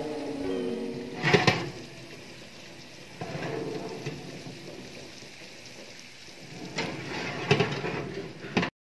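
Tray of sliced chips baking in a hot oven, giving a steady sizzling hiss. Sharp metal clanks of the tray against the oven rack come about a second in and again near the end.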